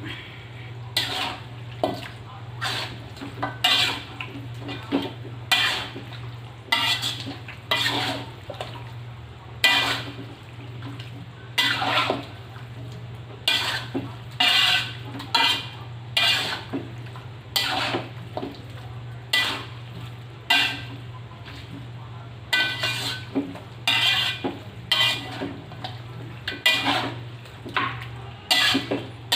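A spatula scraping and knocking against a cooking pan again and again, about one or two strokes a second, as chicken is stirred in its spice paste. A steady low hum runs underneath.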